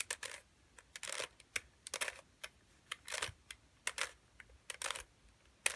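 Rubik's cube layers being turned by hand through an OLL algorithm (the fish case): a series of short plastic clicks and clacks, about two a second.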